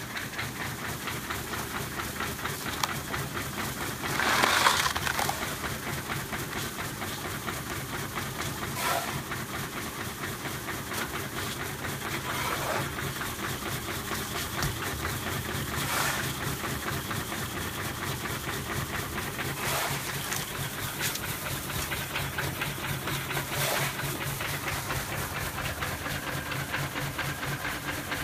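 Seaweed processing machinery running with a steady fast rattle and hum, and a louder rush that comes back about every three and a half to four seconds.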